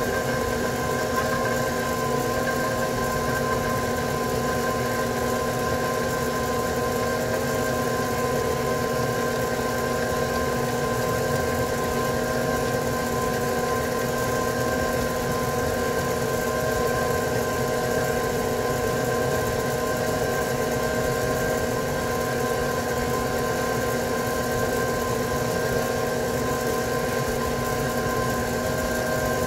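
Stand mixer motor running steadily at one speed while its flat paddle beats half an egg into thick choux paste in a steel bowl: an even hum with a constant whine.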